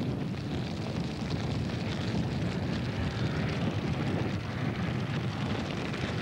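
A Ford Sierra rally car approaching at speed on a loose gravel stage, its engine and tyres growing louder as it nears about halfway through.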